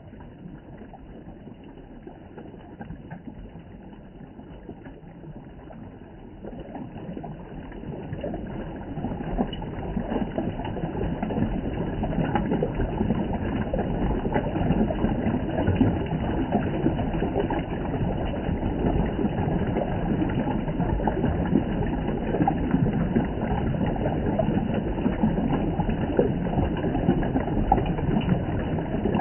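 Water running from a mountain spring: a steady rush of flowing, splashing water that grows louder over the first ten seconds or so, then holds steady.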